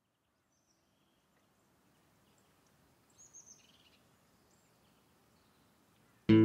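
Faint outdoor hush with a few brief high bird chirps, the clearest about three seconds in. Loud electric guitar music cuts in abruptly at the very end.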